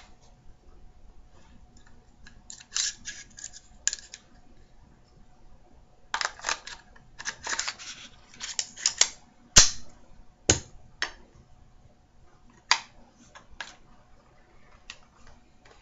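Metal clicks and rattles of AR-15 rifle parts being handled, coming in irregular clusters, with one sharp click a little past halfway the loudest.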